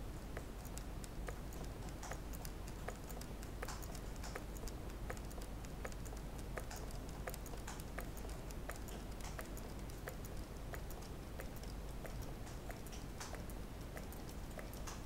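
Meccano model Stirling engine running, its mechanism making a quick, uneven run of light clicks and ticks.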